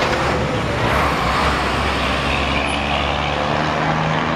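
Street traffic at a busy intersection: vehicle engines and tyres, with a city bus's engine growing louder in the second half as it pulls up.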